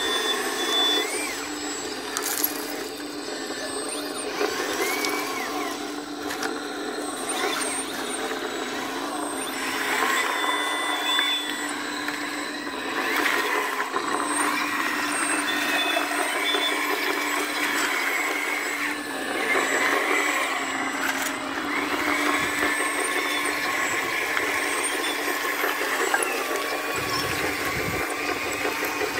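Whine of a Hidromek H4 500 Metalhobi RC hydraulic excavator's pump and electric motors, with a Carson Liebherr LR 634 RC dozer working beside it. The pitch rises and falls as the machines are worked, with a few sharp clicks of stones.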